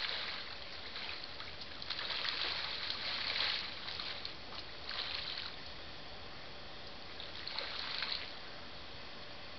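Splashing of a flock of red-breasted merganser ducklings rushing and diving along the lake surface, swelling in three spells of a second or so, the loudest about three seconds in.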